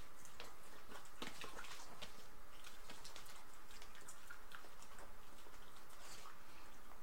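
Shiba Inu dogs making irregular light clicks and soft smacks, a scatter of short ticks a few times a second.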